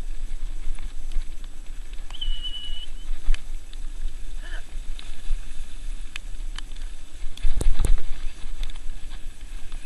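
Dog-drawn training kart rolling over a rough, muddy trail: a steady low rumble with scattered rattles and knocks. There is a short high squeal about two seconds in and a heavy jolt about seven and a half seconds in.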